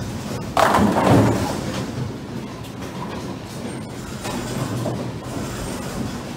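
Bowling ball crashing into the pins about half a second in, the pins clattering and ringing for about a second. A steady rumbling of the bowling alley follows.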